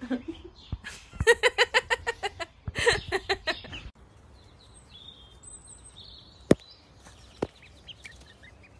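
A person's voice in quick, loud laughing bursts for the first four seconds. Then faint, high-pitched peeping from baby ducklings, with two sharp clicks.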